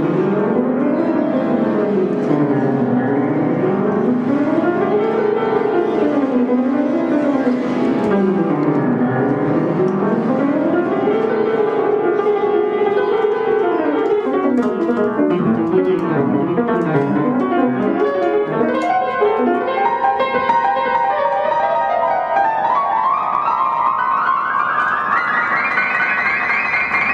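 Upright piano being improvised on: fast runs sweep up and down through the middle register again and again. Then, about two-thirds of the way in, a long run climbs steadily up the keyboard into the high treble.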